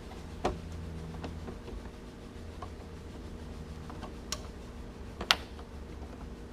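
A few scattered clicks and taps of metal as a refrigerator door handle's bottom fastener is tightened, the loudest a sharp tap about five seconds in, over a steady low hum.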